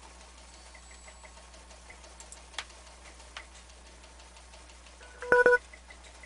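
A short electronic beep of two quick pulses about five seconds in, the loudest sound, over a steady electrical hum. Faint ticking and two sharp clicks come before it.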